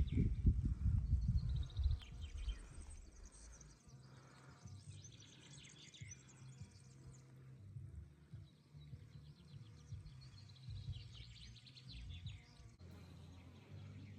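Small birds chirping and trilling at intervals over a faint low background hum, with a loud low rumble in the first two seconds.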